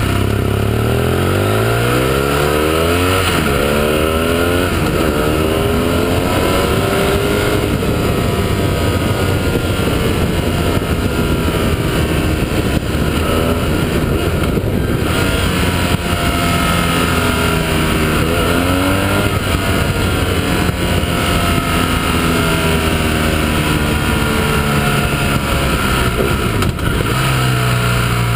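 Motorcycle engine heard from onboard, accelerating hard through the gears with its pitch climbing and dropping back several times in the first few seconds, then easing off and pulling again out of the bends. A steady rush of wind and road noise runs under it.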